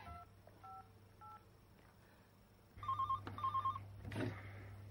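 Three faint keypad beeps as a number is dialled on a mobile phone, then a telephone rings with two short warbling trills about three seconds in, followed by a brief rustle.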